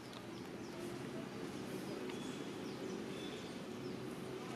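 Outdoor ambience: a steady low background hum with faint, brief high bird chirps scattered through, several falling in pitch.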